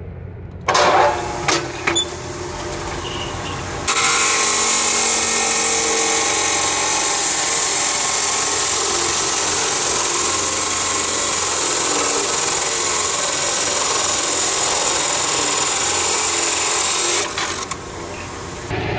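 Abrasive cut-off saw starting up about a second in, then its wheel cutting through an aluminium bar with a loud, steady noise from about four seconds in. The cut ends near the end.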